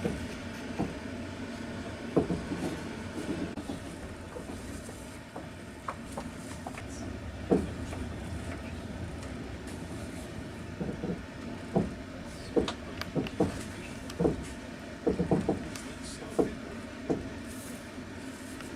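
Passenger train carriage riding along the rails: a steady rumble with irregular knocks and clacks of the wheels, some in quick clusters.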